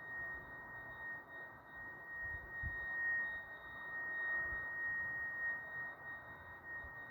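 A steady, high-pitched tone that holds one pitch, with a faint overtone, over a low hiss and some faint low rumbling, with a brief low thump a little after two and a half seconds in.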